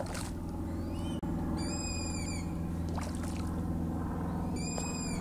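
A bird calling: a high, drawn-out note repeated about every three seconds, heard twice, over a steady low hum.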